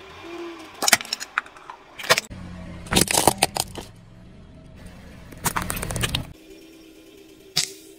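Car tyre rolling over and crushing hard plastic toys and objects: sharp cracks and crunches in about five separate bursts, the longest snapping runs about three seconds in and again past five seconds.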